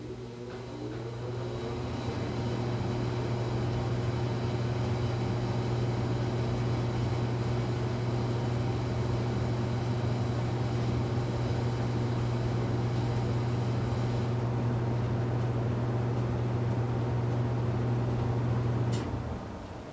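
A machine clicks on, runs with a steady low electrical hum and fainter steady tones above it for nearly twenty seconds, then clicks off near the end.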